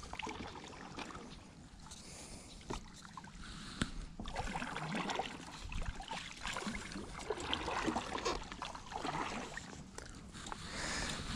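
A paddle stroking through the water beside an inflatable paddle board: irregular swishes and splashes, louder after the first few seconds, with a few short clicks.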